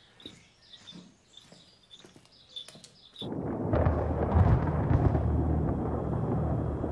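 Faint birdsong, then about three seconds in a loud, low rumble of thunder comes in suddenly and rolls on.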